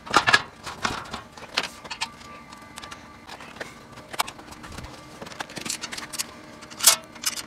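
Steel cargo-basket panels knocking and clicking against each other as they are handled and fitted together: scattered sharp metal taps, a cluster of knocks at the start and one loud clack near the end.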